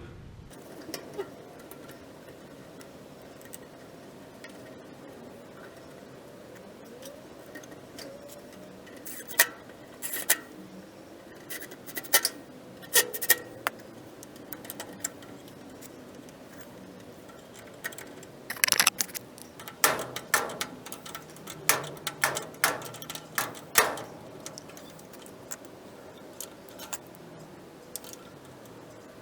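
Irregular metallic clicks, taps and knocks of hand tools and parts as a gas water heater's burner assembly and new thermocouple are fitted back in place, coming in two busy clusters about nine seconds in and again about eighteen seconds in.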